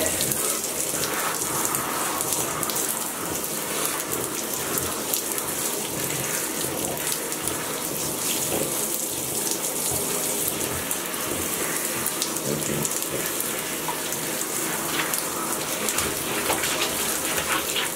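Water running steadily from a handheld shower sprayer into a bathtub while a dog is washed.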